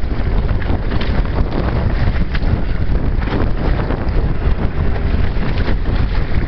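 Wind buffeting the microphone aboard a Hobie Tandem Island sailing kayak under sail, a loud, steady low rumble, with choppy water rushing along the hull.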